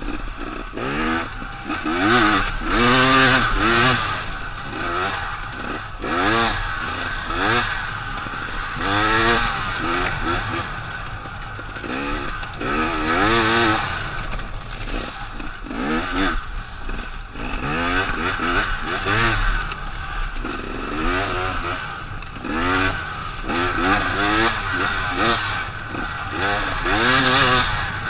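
Two-stroke single-cylinder engine of a 2014 KTM 250 XC-W enduro bike, revving up and falling back over and over as it is ridden hard along the trail.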